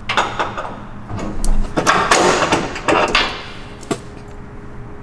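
Scraping and rustling with a few sharp clicks and knocks, from hand work under a truck. The loudest scrape comes about two seconds in.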